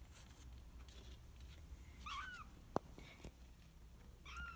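A kitten mewing: two short, high, arched mews, one about two seconds in and another near the end, with a single light click between them.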